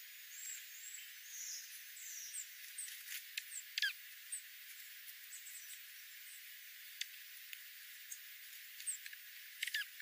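Faint, high chip calls of small ground-feeding birds, dark-eyed juncos and sparrows, with scattered short clicks and one quick falling note near four seconds in.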